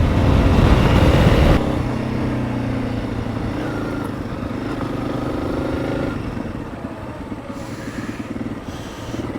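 Honda CRF300 Rally's single-cylinder four-stroke engine running while riding, with wind rushing over the microphone for the first second and a half before it drops away. The engine becomes quieter from about two-thirds of the way through.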